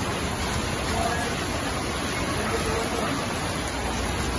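Heavy rain falling steadily: a constant, even hiss of a downpour.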